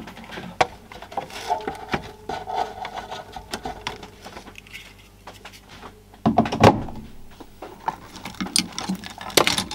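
Handling noise: scattered clicks, taps and rattles of a plastic TV casing, parts and cables being moved on a bench, with a louder clatter about six and a half seconds in.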